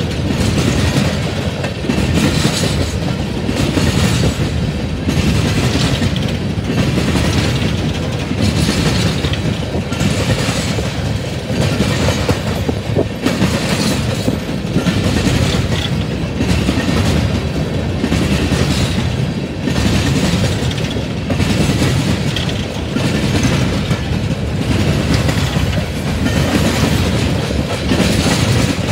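Empty coal cars of a freight train rolling past, wheels clattering over the rails in a steady clickety-clack that swells and eases about every two seconds.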